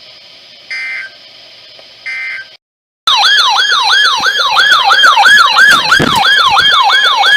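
Two short buzzy data bursts of the EAS/SAME digital code over faint radio hiss, then after a brief dropout a weather radio's siren-style alert alarm sounds loudly, a falling yelp repeating about three times a second, set off by an incoming severe thunderstorm warning.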